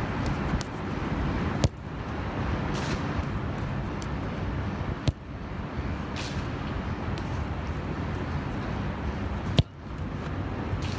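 Steady outdoor noise with a heavy low rumble, broken three times by a sharp click followed by a brief dip in level.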